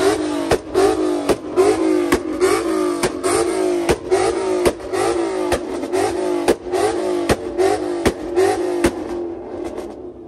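Car engine revving hard in quick repeated pulses, about two and a half a second, each with a sharp crack and a falling pitch. The revving drops away about nine seconds in.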